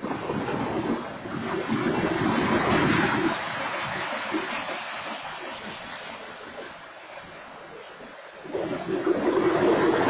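Freight train cars rolling past a crossing: a steady rumbling and rattling of wheels on rail, picked up by an outdoor security camera's microphone. It swells about two seconds in, eases off, then swells again near the end.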